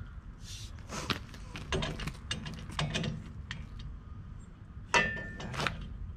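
Steel pallet forks and their fittings clanking and clicking as they are handled and fitted to a tractor loader bucket, with a louder ringing metal clank about five seconds in.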